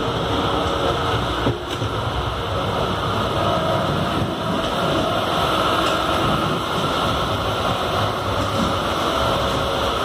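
Steady running noise of an air-conditioned local electric train under way, heard from inside the carriage: wheels on the rails and a constant hum.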